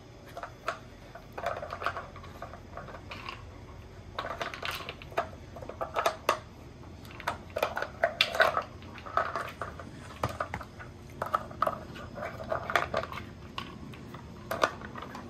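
Irregular plastic clicks and clatters as a German shorthaired pointer puppy noses and paws at plastic treat-puzzle toys, shifting their sliding lids and pieces.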